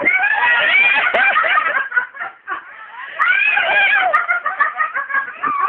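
High-pitched voices giggling and cooing, in two stretches with a short pause about two seconds in.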